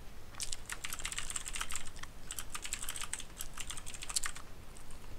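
Typing on a computer keyboard: rapid keystroke clicks in two quick runs, with a short pause about two seconds in, stopping a little after four seconds in.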